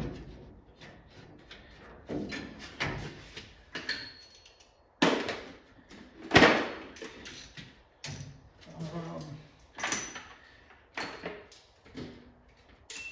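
Metal tools and parts clattering and knocking at uneven intervals as someone rummages through a tool tray by hand. There are about eight sharp knocks, the loudest two in the middle.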